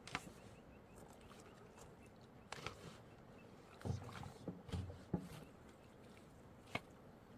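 A few scattered knocks and low thuds at irregular intervals, with a cluster of dull thuds in the middle and a sharp click near the end, over a faint steady background.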